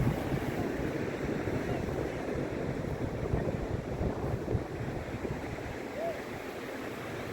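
Surf washing on the beach with wind buffeting the microphone, a steady rushing noise.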